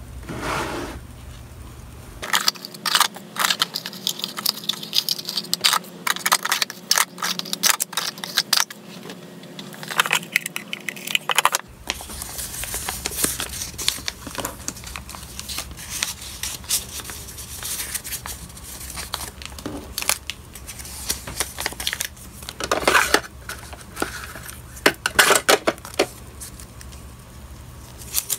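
Hands handling paper slips and sticker sheets: crinkling, rustling and light tapping in many short, irregular bursts.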